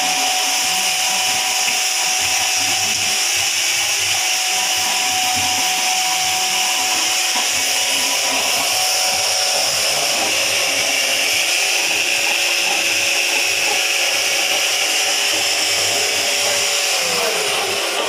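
Electric half-bag tilt concrete mixer running, its motor and drive giving a steady mechanical whirr with a constant whine; near the end one tone slides down in pitch.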